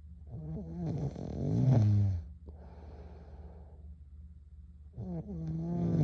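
A girl snoring in her sleep: two long, loud snores with a wavering pitch, about four and a half seconds apart, with a quieter breath between them.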